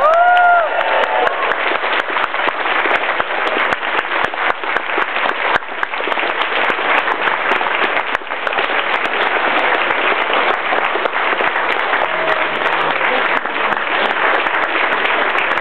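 Large seated audience applauding steadily, dense clapping throughout, with a brief rising whoop right at the start.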